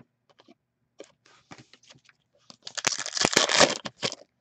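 A foil trading-card pack being torn open, its wrapper crinkling and crackling loudly for a little over a second near the end, after soft rustles and clicks of cards being handled.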